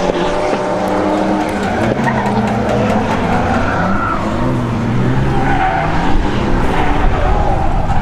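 Drift cars' engines revving up and down, with tires squealing.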